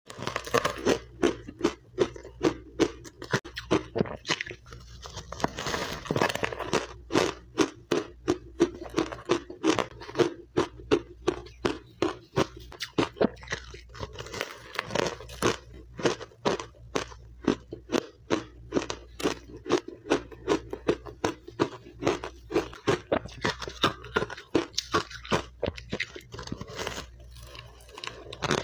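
Powdery refrozen matcha ice being bitten and chewed: a steady run of sharp, crackly crunches, about two or three a second, with a denser stretch of crackling a few seconds in.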